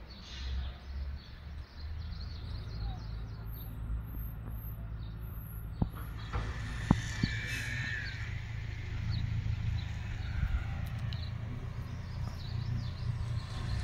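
Outdoor ambience of small birds chirping in the trees, with a short whistled call about halfway through, over a steady low rumble. A few sharp clicks sound near the middle.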